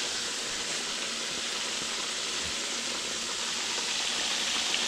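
Deer burgers frying in hot grease in a skillet: a steady sizzle.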